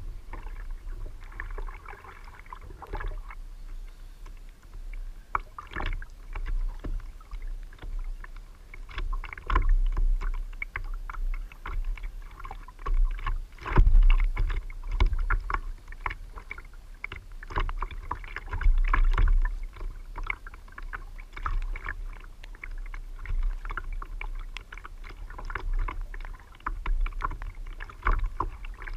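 Water slapping and sloshing against the plastic hull of a fishing kayak, with a steady deep rumble of wind on the microphone and many irregular knocks and clicks from the hull and fishing gear while a fish is fought on rod and reel. Louder surges come about ten, fourteen and nineteen seconds in.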